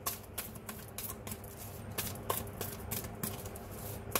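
A deck of oracle cards being shuffled by hand: a string of quick, irregular clicks and flicks as the cards slide and knock against each other.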